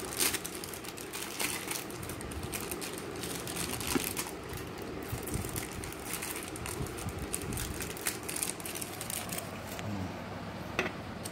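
Plastic wrapping crinkling and rustling, with many small clicks and taps from the steel lid and handle of a new Prestige pressure cooker being handled.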